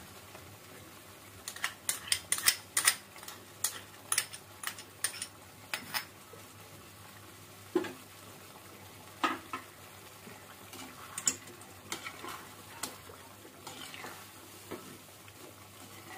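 Metal spoon and slotted spatula clinking and scraping against an aluminium kadhai while chicken korma is stirred, over a steady faint sizzle of the chicken frying in its masala and oil. A quick run of sharp clicks comes a couple of seconds in, then single knocks every second or two.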